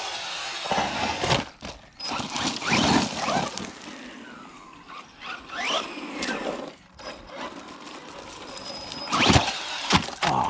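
Electric RC buggy driving hard: its motor whine rises and falls with the throttle over tyre and gravel noise, with sharp knocks as it flips and lands, the loudest a little before the end.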